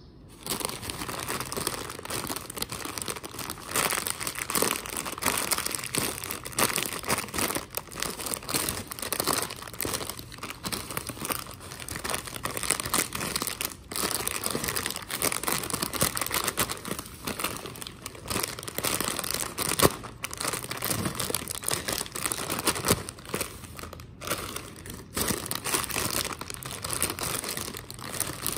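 Crinkling of metallised plastic Lay's potato-chip packets being handled and turned over in the hands: dense, irregular crackling with a few brief pauses.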